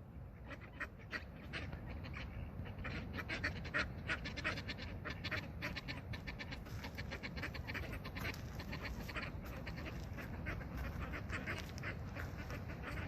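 Sea surf on a beach, a steady low rumble of waves, overlaid with a dense, irregular patter of short crackling or chattering sounds, several a second.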